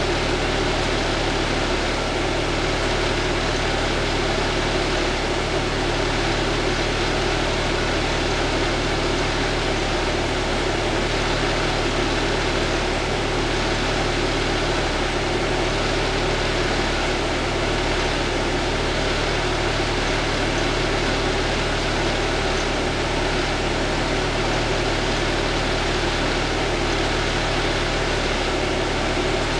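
Parked fire truck's engine idling: a steady, unchanging drone with a low hum, picked up by the dash camera in the cab.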